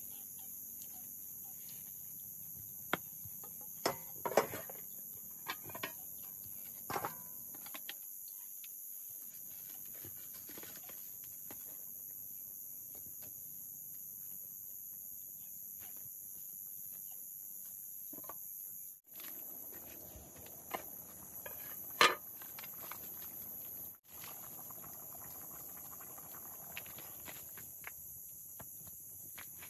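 A steady, high-pitched chorus of night insects, with scattered knocks and clinks as a metal cooking pot, its lid and a wooden spoon are handled over a wood fire. One sharp clank, the loudest sound, comes a little past two-thirds of the way through.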